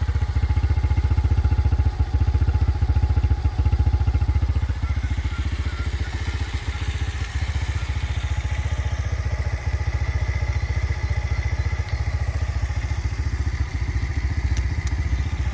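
A carbureted Hellcat 125cc motorcycle engine idling steadily, with an even, rapid firing beat.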